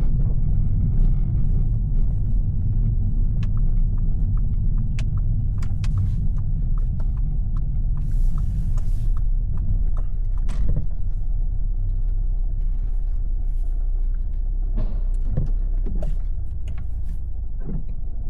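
Audi TT 2.0 TFSI four-cylinder turbo petrol engine and road noise heard from inside the cabin while driving, a steady low rumble with scattered light clicks. The engine is misfiring all the time, which the driver takes for running on three cylinders.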